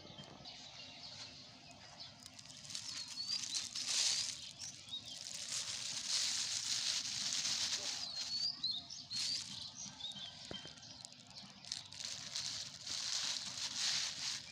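Rustling and crackling from litter being handled and picked up off the ground, coming in long stretches, while small birds chirp now and then.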